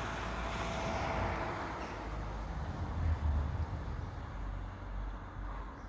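Outdoor ambience with a passing vehicle whose rushing sound fades away over the first two seconds, over a low rumble that swells briefly about three seconds in.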